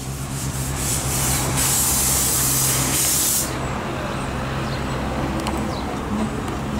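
Miniature-railway steam locomotive letting off steam: a loud hiss that starts about a second in and cuts off suddenly after about three and a half seconds, over a steady low hum.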